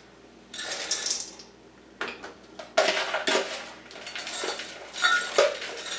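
Frozen partridgeberries rattling and clattering as they are tipped from a plastic container into a measuring cup. A rustle comes first, then after a short lull several clattering pours about two seconds in.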